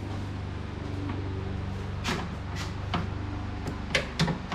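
A few short clicks and knocks of plastic interior trim being pried and handled, over a steady low hum. The clicks come in the second half.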